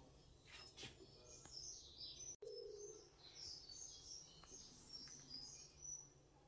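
Faint birds chirping, many quick high calls, over near-silent room tone; the sound drops out for an instant about two and a half seconds in.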